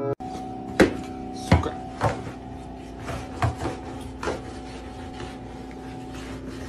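A thin rod poked under a refrigerator, knocking and scraping against the floor and the fridge's underside in about five irregular sharp taps, over a steady hum.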